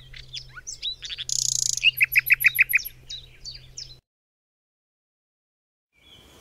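A songbird singing a quick, varied song of short chirps and whistled notes, with a brief buzzy trill and then a run of about six quick repeated notes, over a low steady hum. It cuts off suddenly about two-thirds of the way in, leaving dead silence.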